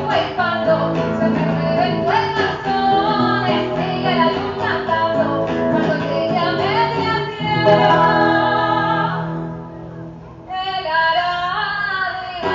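A woman's voice singing over a strummed acoustic guitar, a live voice-and-guitar performance of a Mexican popular song. The music drops away for about a second near the end, then the singing resumes.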